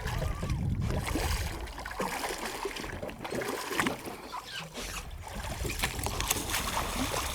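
Water sloshing and lapping around a small fishing boat at sea, with wind rumbling on the microphone and small scattered knocks.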